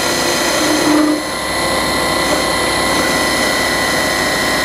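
1602 metal lathe running at about 1500 spindle rpm, its motor driven at 100 Hz, with a steady high whine as a carbide insert takes a light finishing pass on a bar. The pass leaves a poor surface finish, which the turner puts down to either vibration or runout.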